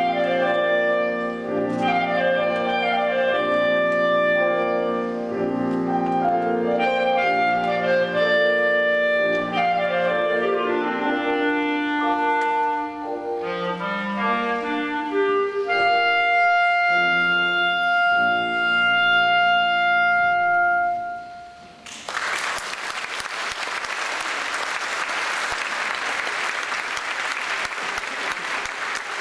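Clarinet with piano accompaniment playing the closing bars of a classical piece, ending on a long held note. About two-thirds of the way through, the music stops and the audience applauds.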